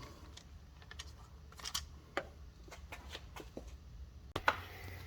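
Scattered light clicks and taps of small objects being handled, a few louder near the end, over a quiet background hum.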